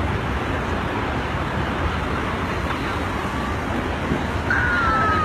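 Strong wind buffeting a phone microphone as a tornado passes: a steady, rough rumbling rush. Near the end a brief thin high tone sounds and falls slightly in pitch.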